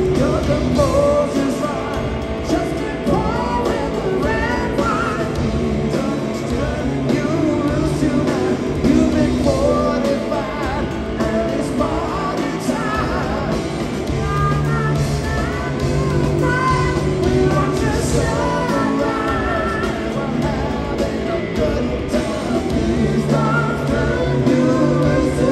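Live rock power trio of electric guitar, bass and drums playing, with singing over the band.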